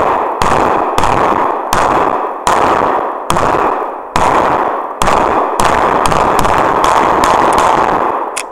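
Several handguns firing rapid volleys together: a dense run of overlapping shots and their echoes that stops shortly before the end.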